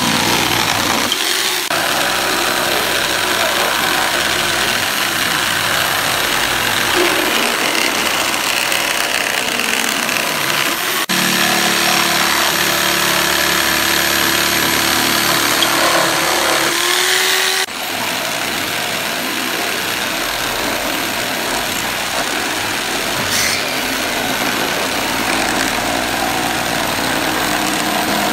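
Corded Makute electric jigsaw running and cutting through pine pallet boards: a steady, loud buzzing saw noise whose tone changes abruptly twice.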